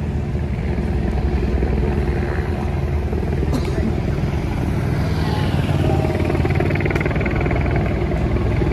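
Engines of race-convoy motorcycles and cars running steadily as they pass, with spectators' voices over them.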